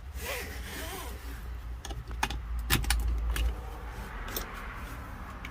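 A few sharp metallic clicks and clinks over a low rumble, the loudest a little past halfway through.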